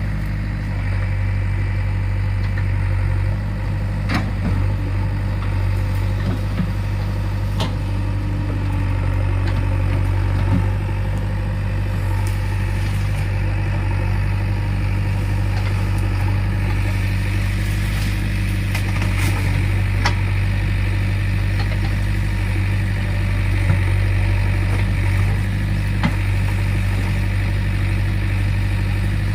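JCB 3DX backhoe loader's diesel engine running steadily, with a few light knocks now and then.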